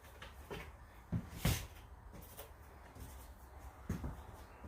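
A few light knocks and rustles, the loudest about a second and a half in, over a low steady hum.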